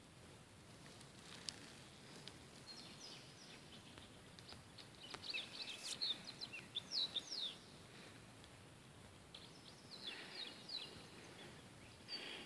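Small birds chirping: quick series of high, short chirps, many falling in pitch, in a busy spell in the first half and another near the end, over a faint steady outdoor hiss.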